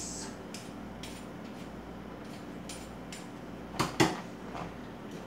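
A carrot peeler scraping the skin off a carrot in faint, short strokes, with two sharp knocks close together about four seconds in.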